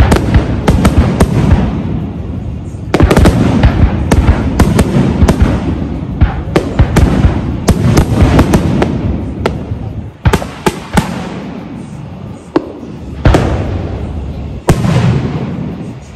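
Aerial fireworks shells bursting overhead in quick succession: a rapid string of sharp bangs and crackling, with a rolling rumble between them. Big booms come about three seconds in and again near the end.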